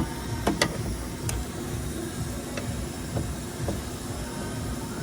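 A few light clicks and knocks as a new door check strap is worked through the door cavity past the wiring, two close together about half a second in and another soon after, over a steady hiss.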